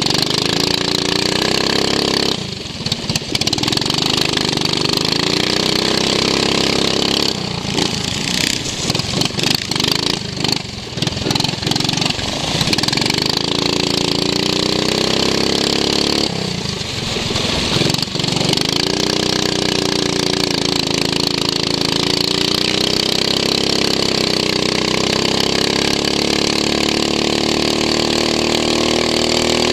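Racing lawn mower's engine heard onboard at speed, revs rising and falling: it drops sharply a couple of seconds in and again about halfway, runs ragged and broken for a few seconds in between, then climbs back and holds high near the end.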